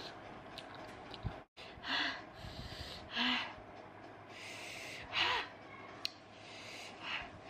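A person's sharp, hissing breaths drawn in and blown out through the mouth, in about four bursts a second or so apart: a reaction to the burn of extremely spicy raw mango salad.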